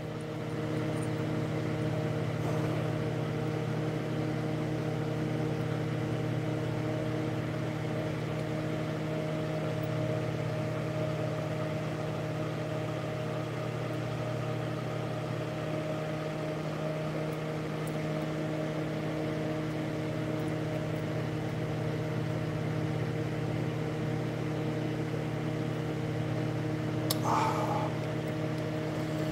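Steady electrical hum with a faint fan-like whir underneath, even and unchanging throughout. A short faint sound comes once near the end.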